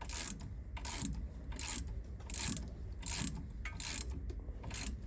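Ratchet wrench clicking in short repeated strokes, about one every three-quarters of a second, as bolts on the car's front brake are tightened.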